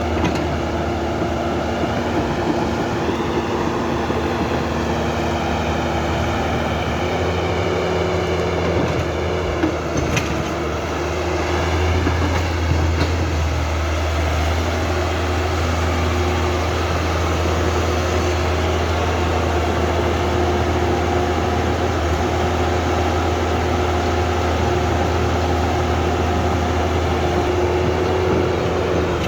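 Huina 1550 RC excavator's electric gear motors running continuously as it works, a steady hum under a higher whine that wavers in pitch as the motors change speed.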